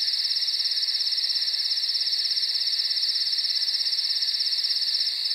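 Crickets chirping in a steady, high-pitched night chorus with fast, even pulsing.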